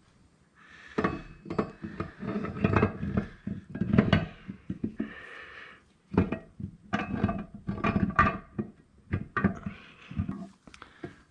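Metal clinks and knocks of NP435 transmission parts and the gearbox case being handled and set down on a wooden workbench, with some scraping and rubbing between the knocks and a short lull about halfway through.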